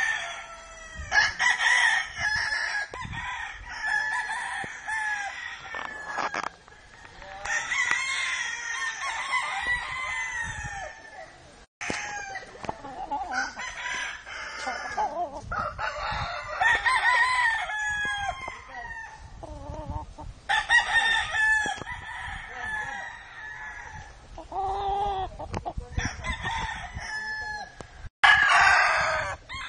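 Roosters crowing again and again, with clucking between the crows. The sound drops out briefly twice.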